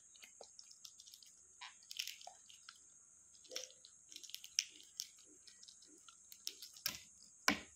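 Balut eggshell being cracked and picked off by fingers: faint, scattered crackles and small clicks, with two sharper clicks near the end.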